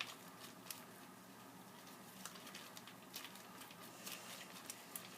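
Faint crinkling and squishing of a plastic zip-top bag being squeezed and kneaded by hand, with glue-based slime mixture inside, in scattered soft clicks.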